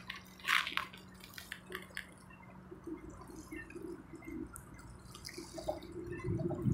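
Small waves lapping and splashing against a rocky shore, with a few sharp splashes in the first second, then softer drips and slaps over a faint steady hum. Near the end a louder low rushing noise rises.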